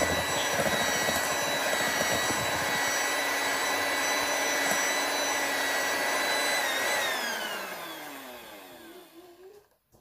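Electric hand mixer whipping double cream in a glass bowl, running at a steady high whine; about seven seconds in it is switched off and the whine falls in pitch and fades as the motor winds down.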